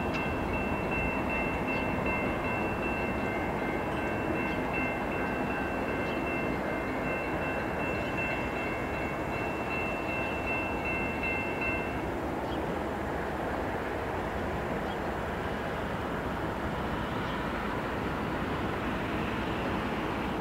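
Level-crossing bell ringing with a steady repeated stroke over the rumble of a CN freight's diesel locomotive. The bell stops about twelve seconds in, leaving the locomotive's engine running.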